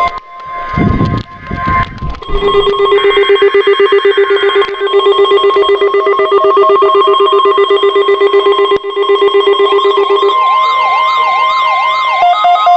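Electronic emergency-alert tones layered together, after a brief low rumbling noise at the start: a steady high tone runs under a rapidly pulsing lower tone. About ten seconds in, a siren-like wail sweeps up and down about twice a second, then changes to a two-note hi-lo warble near the end.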